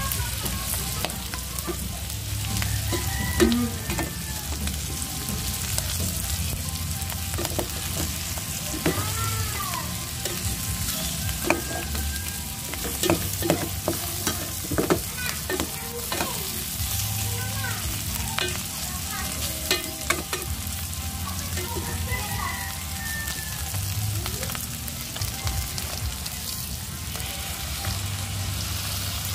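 Pork pieces sizzling as they fry in an aluminium pot, with a metal spoon scraping and clinking against the pot as they are stirred.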